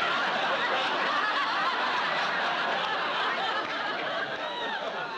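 Studio audience laughing: a long wave of laughter from many people at once, tapering off near the end.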